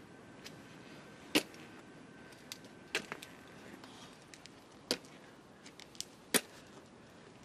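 A few sharp, short knocks or clicks over quiet background, the loudest about a second and a half in and several more spaced roughly a second and a half apart.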